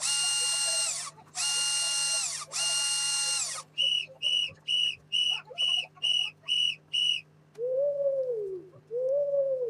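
A run of synthetic sound effects: three long buzzy tones that each drop in pitch as they end, then eight short high beeps in quick succession, then lower tones that rise and fall near the end.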